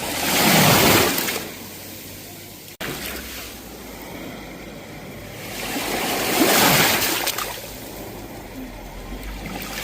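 Sea waves breaking and washing ashore, a steady rushing wash that swells twice, about six seconds apart. A sudden brief dropout cuts the sound for an instant about three seconds in.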